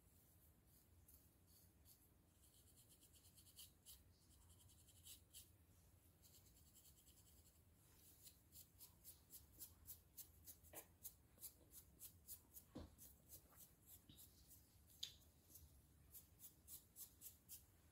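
Fine-tooth comb scratching through a dry, flaky scalp with dandruff: faint, short scratching strokes, a few at first, then coming quickly and rhythmically at about three a second through the second half.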